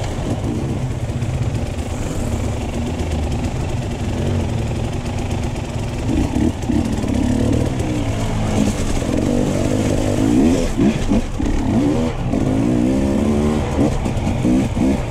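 Enduro dirt bike engine running on a rough trail. The revs rise and fall with the throttle, more often and more sharply in the second half.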